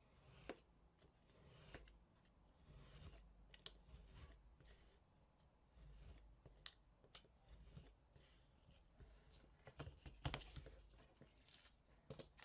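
Faint rustling and scraping of paper being trimmed and handled, with scattered light clicks and taps.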